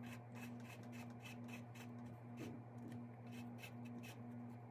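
Faint rubbing and light irregular clicks of faucet parts being handled and fitted back together, over a steady low hum.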